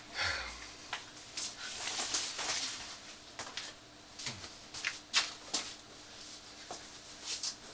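Cloth hospital gown rustling as it is swung over the shoulders and wrapped around the body: a run of irregular short swishes and rustles.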